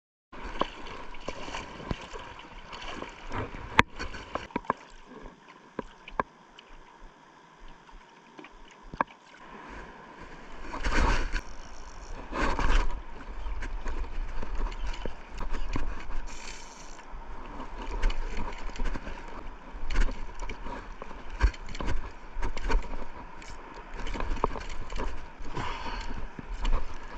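Water sloshing and splashing around a board, with scattered sharp knocks and a low rumble of wind on the microphone.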